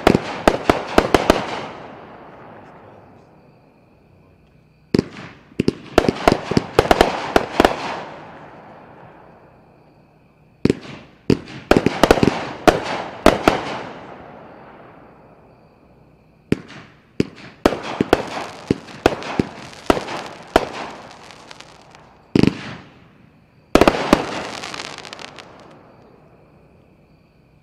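Mad Macaw aerial firework firing in volleys, about every six seconds. Each volley is a rapid run of sharp bangs and crackles, about two seconds long, that fades into a trailing crackle. Near the end a single bang comes just before the last volley.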